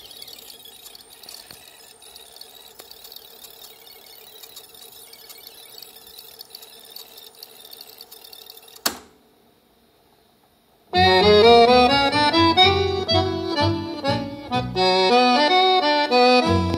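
Sanyo M 9998 K boombox's cassette deck in cue/AMSS fast-forward search: the tape's music plays back as a faint, high, garbled chattering. About nine seconds in a click sounds as the mechanism drops back to play. Two seconds of near silence on the blank gap between songs follow, then Argentine tango music with accordion starts playing from the cassette.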